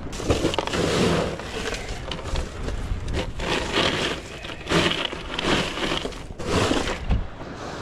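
Irregular rustling, scraping and knocking of close handling noise: a jacket sleeve rubbing near the microphone while fish are put into a plastic cooler.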